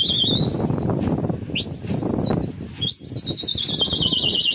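Shrill whistling at a flying pigeon flock. A warbling whistle is followed by a short steady one, then a long warbling whistle that slowly falls in pitch, over steady background noise.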